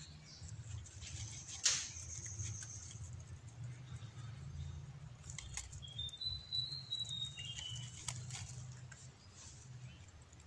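A rabbit nibbling at leaves, with a few sharp crunching clicks and rustles, the loudest near the start. Partway through, a bird gives a short run of whistled notes that rise slightly and then fall, over a low steady rumble.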